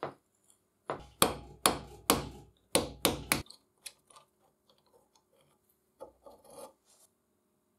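Corroded threads of a rusty bolt and nut on a cast-iron rebar cutter grating as the fastener is turned off: about eight short, gritty scraping strokes in quick succession. These are followed by a few faint clicks and, about six seconds in, a brief cluster of quieter scrapes as the loose rusty parts are handled.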